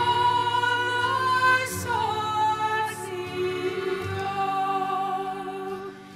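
Music: a sung melody with held, gliding vocal notes over sustained low accompaniment, with a brief dip near the end.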